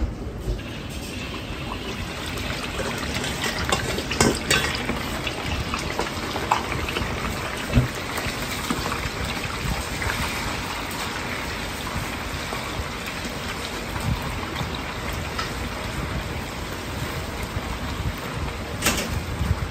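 Sliced pork belly sizzling and bubbling in a wok of deep hot oil. The steady sizzle starts as the meat goes in, about half a second in. The metal ladle knocks against the wok now and then as it stirs.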